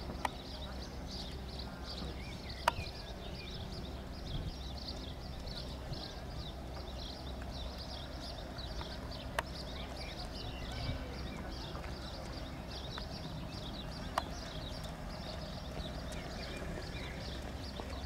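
Outdoor ambience: dense, continuous high chirping over a steady low rumble, with a few sharp isolated clicks.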